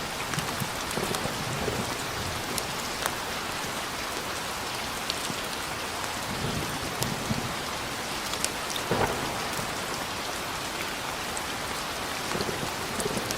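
Steady heavy rain falling, with single drops ticking sharply on a surface here and there and one louder hit about nine seconds in. Low thunder rumbles now and then under the rain.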